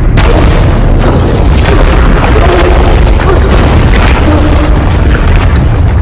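Loud film sound design: continuous deep rumbling booms, with music faintly underneath.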